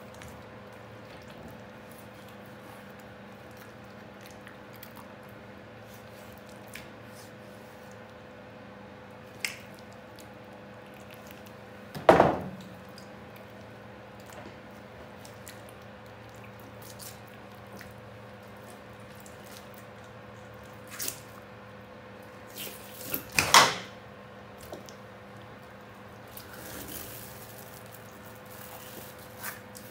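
A burbot being skinned and handled by hand on a plastic cutting board: faint wet handling noises and small clicks over a steady hum, with a loud knock about twelve seconds in and a cluster of knocks a little after twenty-three seconds.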